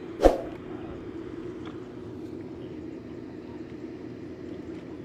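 A steady low hum or drone, with a single sharp knock about a quarter of a second in.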